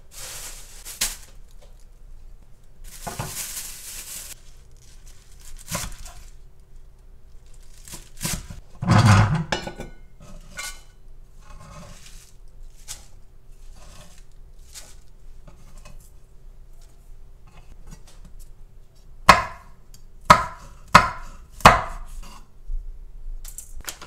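Chef's knife cutting garlic chives on a wooden cutting board: scattered knocks of the blade against the board. A louder clatter about nine seconds in, and four sharp knocks in quick succession near the end.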